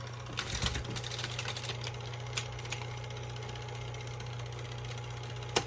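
1968 Olivetti electric typewriter with its motor running in a steady low hum, while keys strike in a quick run of clicks about half a second to two seconds in. A few single clicks follow, with one louder strike near the end.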